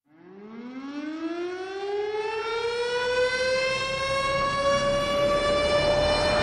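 Air-raid-style siren winding up out of silence: one tone that rises steeply at first, then levels off, growing louder throughout.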